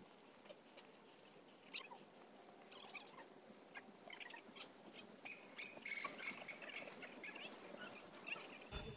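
Faint chirping of small birds: short, high calls that repeat, thickest in the second half, with a few small clicks.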